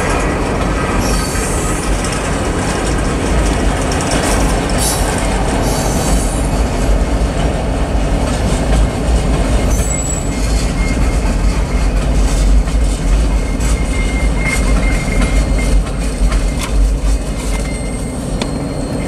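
Freight cars of a manifest train rolling past at close range: a steady rumble with wheel clatter over the rails and a few brief high-pitched wheel squeals.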